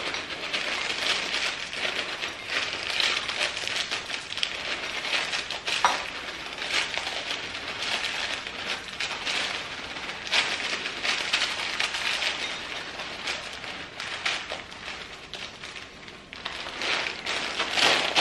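Dry granola pouring and rattling into a bowl, a continuous crackling patter that swells and eases as it is shaken out.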